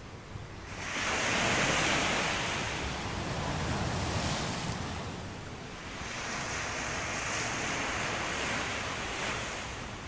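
Small waves breaking and washing up a sandy beach, one swell surging in about a second in and another around six seconds in, with a low rumble of wind on the microphone.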